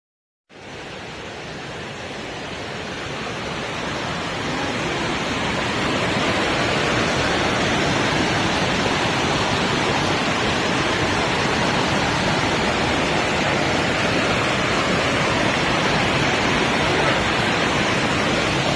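Water rushing over a stepped rock cascade into a pool: a steady rushing noise that cuts in suddenly, grows louder over the first few seconds, then holds even.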